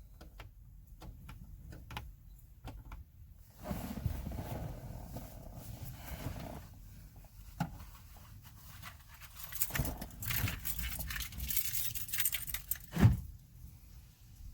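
Small clicks and clattering as the plastic dome light lens is handled and tapped into its ceiling housing, with a sharper knock near the end.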